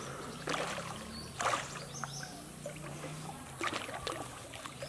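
Pond water splashing and sloshing as swimmers move and duck under, with four short louder splashes over a steady low hum.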